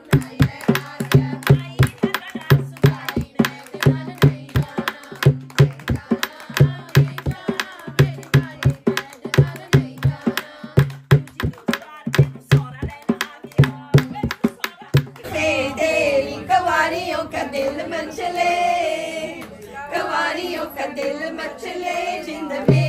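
Dholak (dholki), a two-headed wooden hand drum, played in a quick steady rhythm with a deep booming bass on the low strokes. About fifteen seconds in, the bass drops away and voices sing over lighter beats, and the deep drum strokes come back near the end.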